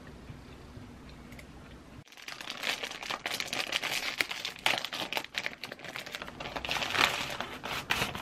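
Quiet room tone for about two seconds, then a plastic cracker-pack wrapper crinkling densely and continuously as hands handle and open it.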